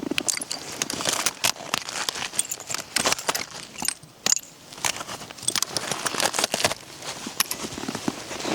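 Irregular crackling, clicking and crinkling of things being handled, dense with sharp clicks and briefly quieter about four seconds in.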